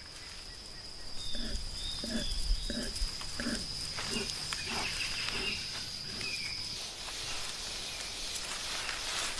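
Wild animal calls: a run of short, low calls about two a second, with a few faint high chirps, over a steady high insect whine that stops about two-thirds of the way in.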